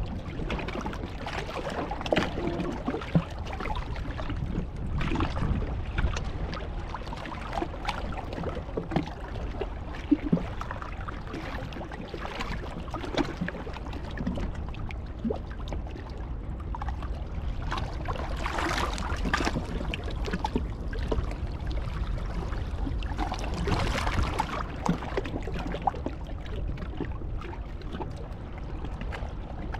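Sea surf washing ashore and wind on the microphone, swelling twice in the second half, with scattered sharp clicks.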